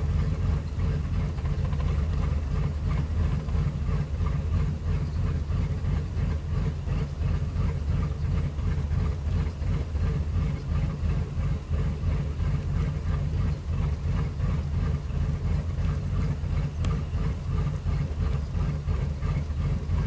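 A Ford 5.4-litre Triton V8 idling roughly, a steady low rumble that pulses unevenly. The rough idle is the sign of a cylinder not firing.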